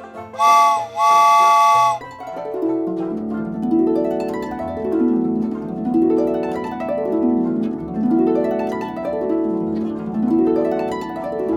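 A train whistle blows twice, a short blast then a longer one. Plucked harp music follows, playing rising and falling arpeggios over and over.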